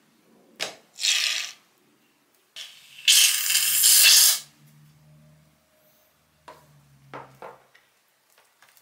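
Two bursts of hissing spray, a short one about a second in and a longer, louder one lasting nearly two seconds, with a few clicks of handling around them.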